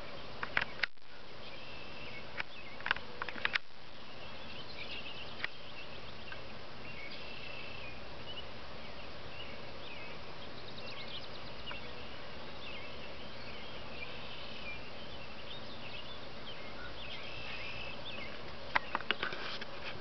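Faint background birds chirping and twittering in short scattered notes over a steady hiss. A few groups of sharp clicks come near the start and again near the end.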